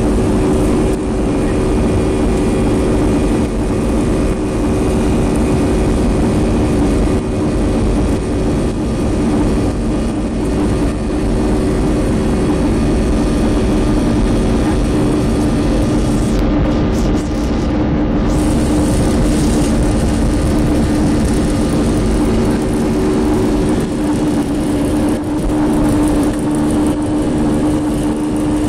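Boeing 737 jet engines at takeoff power during the takeoff roll, heard from inside the cabin: a loud, steady drone over a low rumble.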